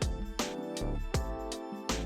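Background music with a steady, unhurried beat of about one hit every three-quarters of a second over held instrument tones.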